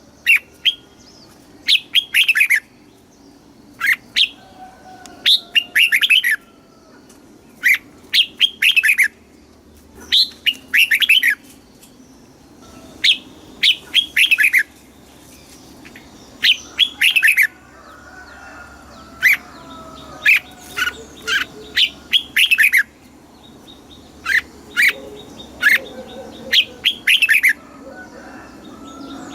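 Red-whiskered bulbul singing: short phrases of quick, bright chirping notes, repeated every second or two.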